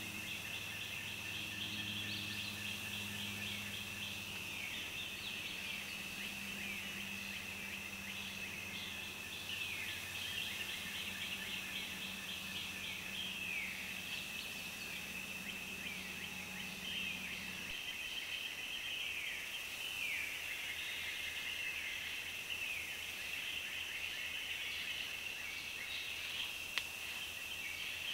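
Forest ambience: a steady high-pitched drone with many short calls that drop in pitch, and a low hum that cuts off about two-thirds of the way through.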